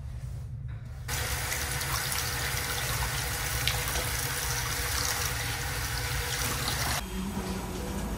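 Water running from a bathroom sink faucet, a steady splashing hiss as hands are washed under it; it starts about a second in and stops suddenly near the end.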